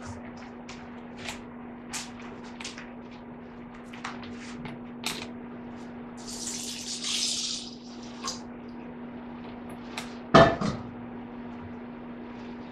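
Rice being washed at a kitchen sink: scattered light clicks and clatter, the tap running briefly midway, and one loud knock near the end, over a steady low hum.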